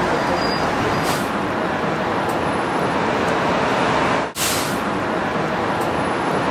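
Steady noise of busy road traffic, with a brief drop about four and a half seconds in.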